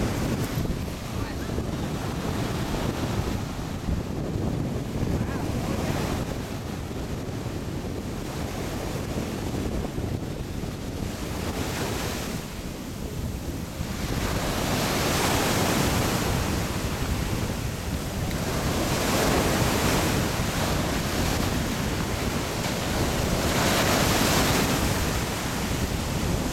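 Ocean surf washing in, swelling louder in slow surges several times in the second half, with wind buffeting the microphone as a steady low rumble.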